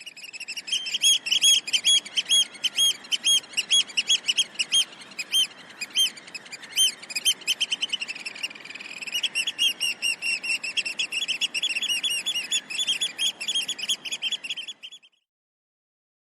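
Seagull calling in a rapid series of short, high-pitched chirps, several a second, thinning briefly about halfway and stopping shortly before the end.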